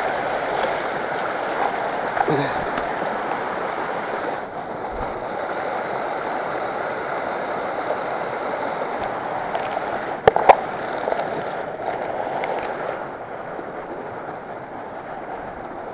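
Muddy floodwater rushing steadily along a swollen creek over rocks and mud. A single sharp knock comes about ten seconds in.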